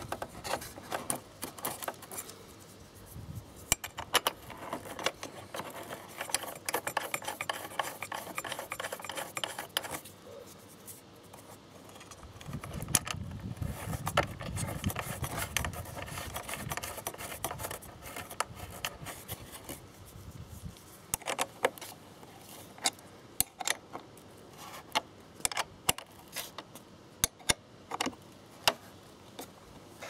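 Metal nut being threaded onto a motorcycle turn signal's mounting stud by hand and then tightened with a ring spanner: many light metallic clicks and ticks with rubbing against the plastic mount, the clicks coming thicker near the end.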